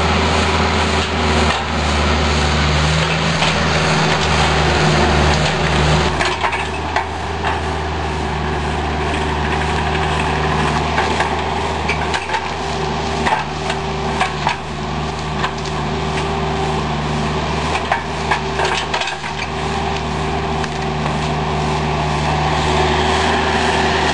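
Mini excavator's diesel engine running steadily, with repeated clanks and knocks from the machine working and tracking over the cut ground. The knocks come more often after the first few seconds.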